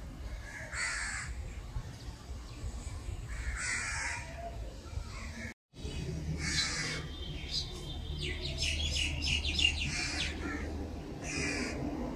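Crows cawing: about five short, harsh caws spread through, with a quick run of chirps from another small bird about two-thirds in, over a steady low rumble.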